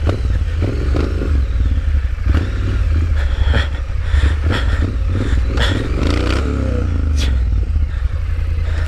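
Triumph Street Scrambler's 900 cc parallel-twin engine running at low revs on a rough dirt descent, with knocks and rattles from the bike over the bumpy ground. About six seconds in the engine note rises and falls briefly.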